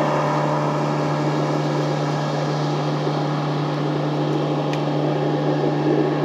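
Boat motor running steadily: a constant low hum under an even hiss, with no change in speed.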